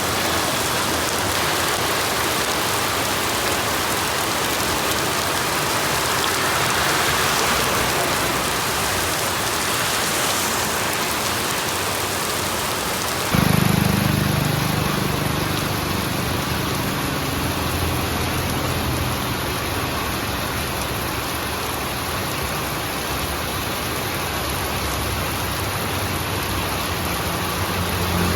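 Steady rain falling. About halfway through, the sound changes abruptly and a low rumble joins the rain, loudest at its start and then easing off while the rain goes on.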